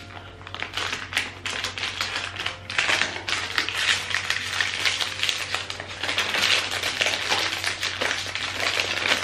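Blind-box packaging being unwrapped by hand: thin foil-plastic bags crinkling and rustling, with a cardboard box being opened, a dense run of small crackles and clicks.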